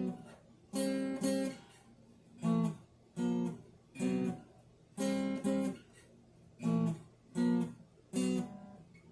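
Acoustic guitar played in short, separate strummed chords, about a dozen in all, some in quick pairs, each stopped short with a quiet gap before the next.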